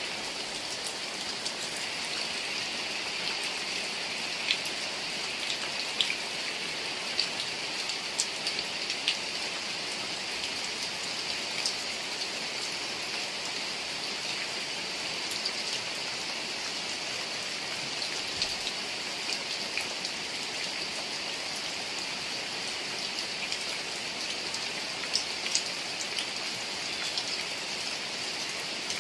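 Steady rain falling, a dense hiss of rain on surfaces with many separate drops ticking sharply throughout.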